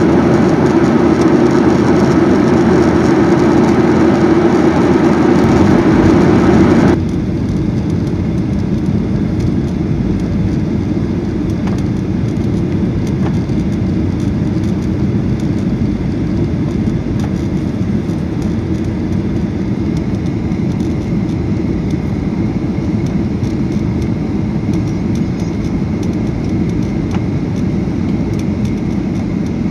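Steady jet engine and airflow noise inside the cabin of a Boeing 737-800 airliner. About seven seconds in the sound drops suddenly to a quieter, steady rumble as the plane comes in to land.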